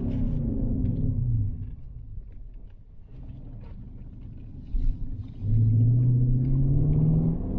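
Car engine easing off with its note falling over the first second or so, running quietly, then accelerating with a rising note from about five seconds in.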